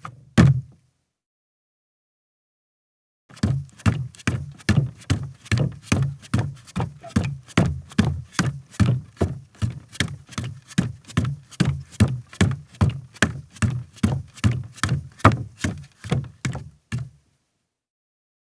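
A woman's bare feet walking on a deck. One or two footfalls at the start, then after a pause a steady run of dull steps, about two to three a second, that stops a little before the end.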